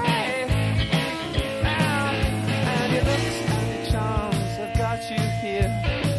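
Rock band music with a steady drum beat and a bending melodic line over it, no sung words.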